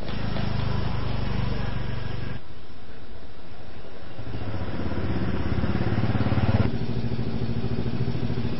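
A motor engine running steadily with an even pulse. The sound changes abruptly about two and a half seconds in and again near the end.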